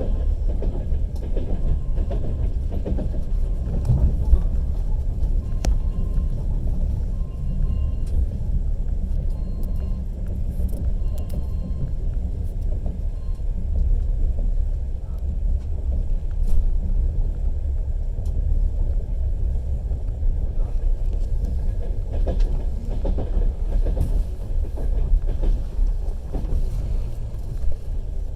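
Passenger train carriage running along the track, heard from inside: a steady low rumble with a few sharp knocks from the wheels.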